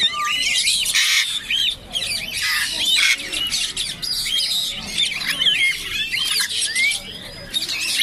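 Many caged pet birds calling at once: a dense, overlapping chorus of high chirps and squawks that carries on throughout.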